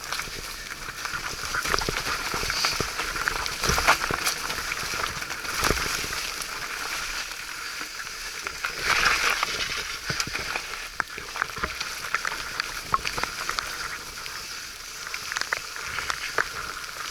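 Mountain bike riding over a wet, muddy trail: a steady hiss of tyres and wet ground, broken by frequent short knocks and rattles from the bike.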